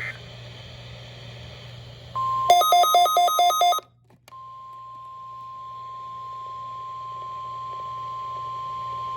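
NOAA Weather Radio warning alarm tone: one steady, high, unbroken tone that grows slowly louder, sounded as the weekly test of the receivers' alarm. Shortly before it settles in, about two and a half seconds in, there is a quick run of rapid alternating electronic beeps, then a brief drop-out.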